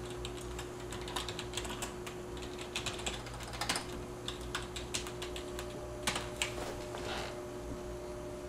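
Rapid, irregular typing on a computer keyboard, keys clicking, over a steady low electrical hum.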